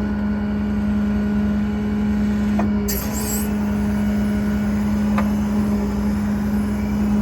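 Service truck's hydraulic outriggers retracting, with the hydraulic pump running as a steady hum. A brief hiss about three seconds in.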